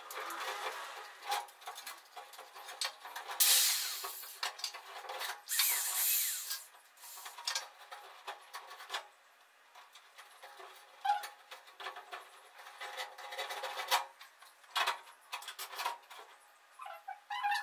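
Hand work overhead: irregular scraping and rubbing with scattered small clicks as materials and tools are handled, and two louder scraping noises, each about a second long, around three and a half and five and a half seconds in.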